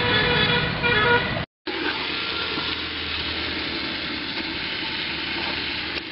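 Quail pieces and masala sizzling in an aluminium pot over a wood fire while a slotted steel spoon stirs them. For about the first second and a half a few steady held tones sound over the sizzle, then they cut off abruptly and only the sizzling goes on.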